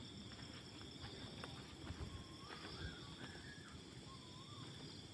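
Crickets and other insects shrilling steadily, with a faint wavering, whistle-like call that rises and falls in pitch from about two seconds in until near the end.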